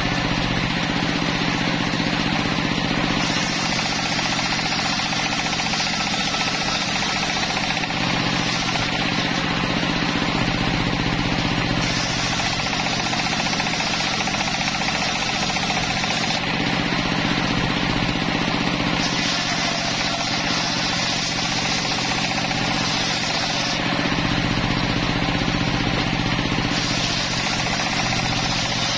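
Homemade table-mounted circular sawmill running: the big blade rips through timber in several passes of a few seconds each, heard as a brighter hiss that comes and goes over the steady low drone of the saw's drive.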